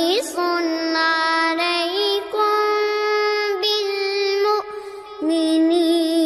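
A high voice reciting the Quran in melodic tajweed style, holding long notes with ornamented turns between them, with a short break about five seconds in.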